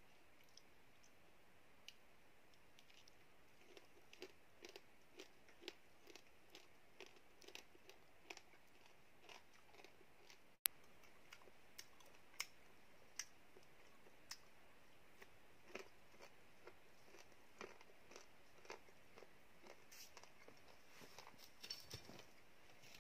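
Faint chewing and crunching as a person bites into and eats wild bananas, small irregular crunches about one or two a second. A single sharp click a little before halfway.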